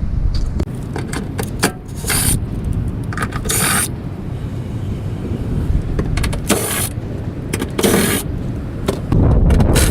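Tools working the factory bolts out of a Toyota Tundra's frame mounting points: scattered clicks and several short hissy bursts at irregular spacing over a steady low rumble, which grows louder near the end.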